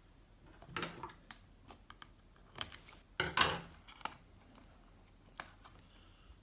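A sealed cardboard trading-card box being opened: a run of short rustling, scraping sounds as its security seal is broken. They are loudest a little past the middle and fade out near the end.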